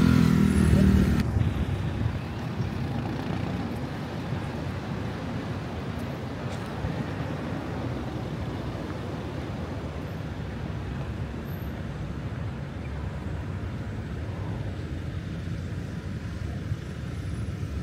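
Road traffic noise: a loud vehicle engine close by dies away in the first second, then a steady low rumble of passing traffic.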